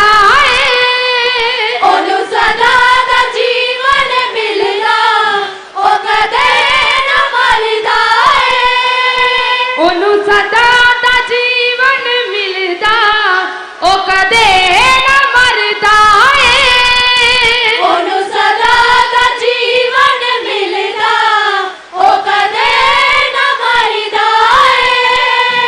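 A young woman sings a repeated Punjabi hymn refrain into a microphone in a high voice. The phrases are broken by short pauses about every eight seconds.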